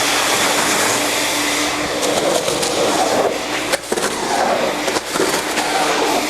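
Ruwac 220-S DuoVac twin-motor industrial vacuum running loudly with a steady hum, sucking trash through a 4-inch hose and gulper tool. Debris rattles and clatters irregularly through the hose from about two seconds in, and the suction noise briefly drops twice as the intake is choked.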